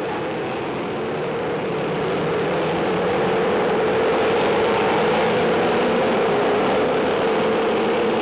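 Massed engines of early-1950s Formula One racing cars (ERAs and a Cooper) pulling away from the start of a race, a steady drone that grows louder about two seconds in, under heavy hiss from an old film soundtrack.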